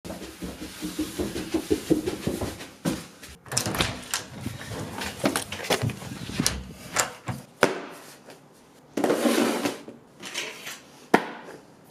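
Household movement and handling noises: a run of knocks, clicks and rustles, including footsteps and a door, with a short rush of noise about nine seconds in.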